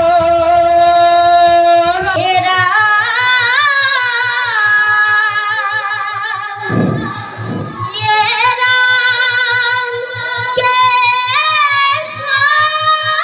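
Bhaona stage song: a single high voice sings long held notes with wavering, ornamented glides, over a fast, even low beat from the accompanying musicians, with a couple of deeper drum strokes around the middle.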